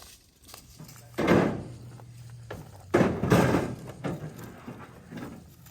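Two loud bangs, about a second and three seconds in, each trailing off in a short clatter, followed by a few lighter knocks.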